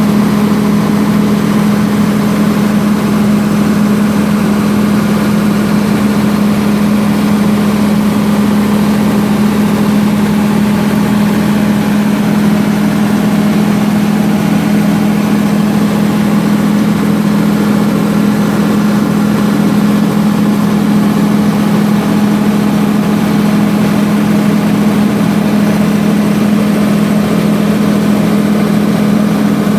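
MEP-006A 60 kW military diesel generator set running steadily at constant speed, a loud even drone with a strong low hum.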